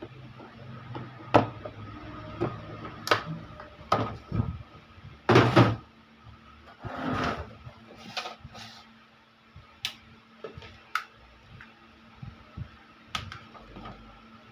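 Irregular plastic clicks and knocks from a cordless wireless microphone being handled and opened up for repair, with a faint steady hum underneath.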